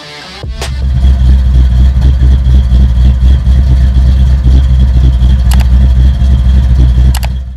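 Car engine running loud and steady, starting about half a second in and cutting off suddenly at the end.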